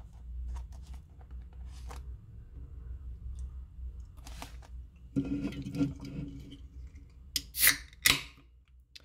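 Soft handling clicks and knocks, then near the end an aluminium beer can's ring-pull is opened: two loud, sharp cracks with a hiss of escaping gas.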